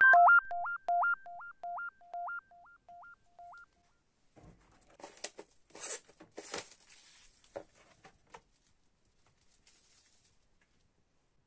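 A short synthesizer intro jingle: a quick two-note beep figure, low and high in turn, that repeats and fades away over about four seconds. Then crinkling and rustling of clear plastic shrink-wrap being peeled off a vinyl LP sleeve, with the loudest crackles about six seconds in.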